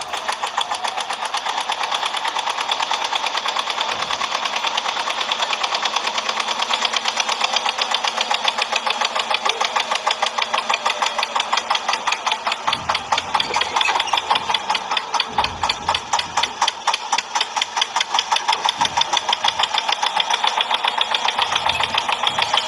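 Toy tractor's engine sound: a rapid, even chugging like an idling diesel, thin and without deep bass as from a small toy speaker. It cuts off suddenly at the end.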